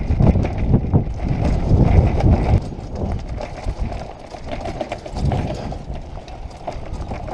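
Bicycle rolling over a rough gravel and rock trail, picked up by a camera mounted on the bike: a rumble of tyres on stones with irregular knocks and rattles as the bike jolts. It is louder for the first couple of seconds and then eases off.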